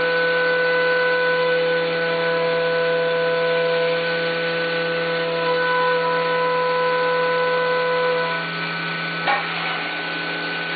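CNC milling machine cutting aluminum: a steady multi-pitched whine from the end mill in the cut, over a hiss of coolant spray. Near the end the whine stops and there is a brief sharp knock.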